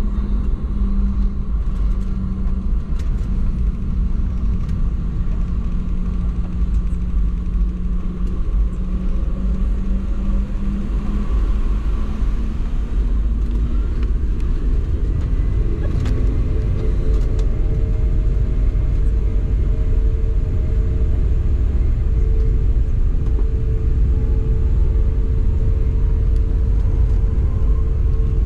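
Cabin noise of a Boeing 717-200 taxiing: a steady low rumble from the rolling airliner, with an engine hum that shifts to a higher steady note about halfway through.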